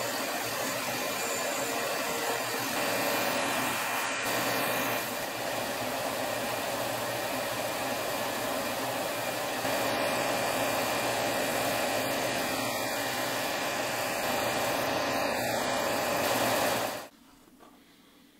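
Bench power sanders running, a 6-inch disc sander and then a belt sander, with a wooden lure blank pressed against the abrasive: a steady motor hum under a dense grinding hiss. The sound cuts off abruptly near the end, leaving a quiet room.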